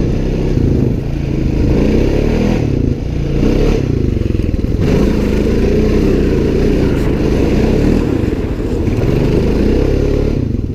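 Off-road vehicle engine running under load, its pitch rising and falling over and over as the throttle is worked.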